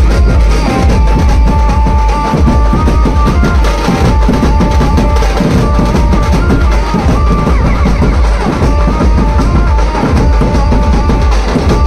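Dhumal procession band playing loud: heavy bass-drum and dhol beats under a high lead melody that steps from note to note.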